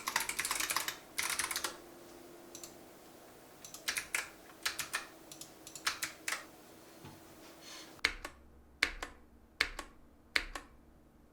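Mechanical keyboard keystrokes typed in irregular bursts. Near the end come four single key presses, evenly spaced a little under a second apart.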